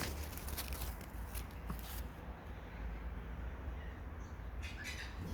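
Crackly rustling and handling noises in bursts through the first couple of seconds and again briefly near the end, over a steady low rumble.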